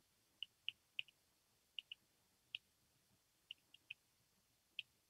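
Faint, irregular light clicks of a stylus tapping on a tablet's writing surface as letters are handwritten, about a dozen in all.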